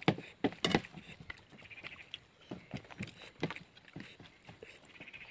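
A person eating chicken intestine curry and rice by hand: chewing with lip smacks, heard as a scatter of short clicks and smacks.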